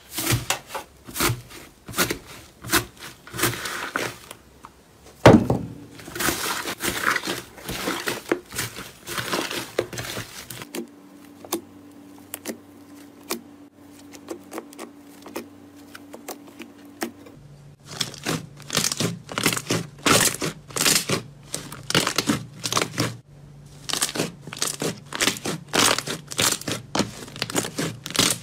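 Hands squeezing, pressing and stretching slime, giving dense, irregular crackling and popping clicks. The crackling thins out and goes quieter for a few seconds in the middle, then picks up again.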